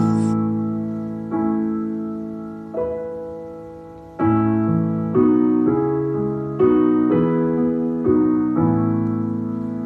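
Slow, gentle piano music: chords struck about once a second, each left to ring and fade before the next.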